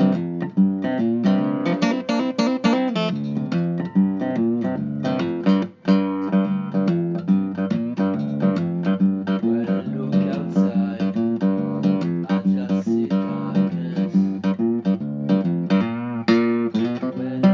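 Guitar music: a guitar picked and strummed in a steady run of notes, with a brief break about six seconds in.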